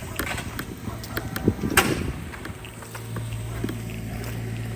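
Footsteps and rustling while walking outdoors, with wind on the microphone and one sharp crack a little under two seconds in. About three seconds in, a steady low engine hum sets in and carries on.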